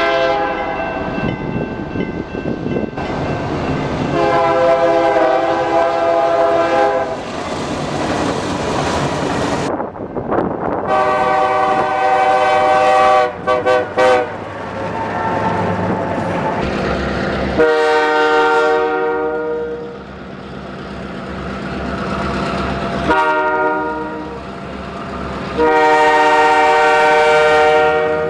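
Diesel locomotive air horns sounding a series of long blasts, the loudest thing throughout, over the running of the engines and the noise of the train passing. The sound changes abruptly several times where separate clips are joined.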